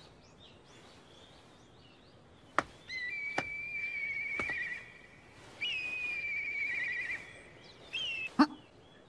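A long whistled bird call, held steady and ending in a quavering trill, comes twice over faint chirping, with a few sharp clicks in between.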